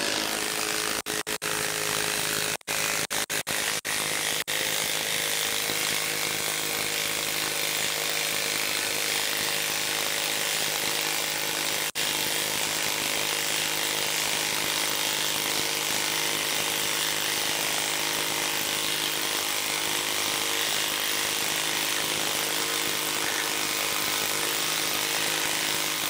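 Cordless Makita impact wrench hammering a 10-inch lag screw into a log under heavy load, with a steady rapid impacting rattle. It stops and restarts briefly several times in the first few seconds, then runs without a break.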